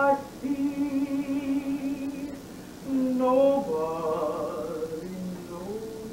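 A woman singing a slow spiritual unaccompanied, holding long notes with a wavering vibrato, with a short break about halfway.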